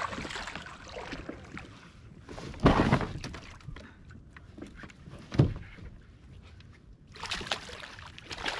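Water sloshing and lapping against a plastic fishing kayak's hull, with two sudden louder knocks, about three seconds in and again a little after five seconds.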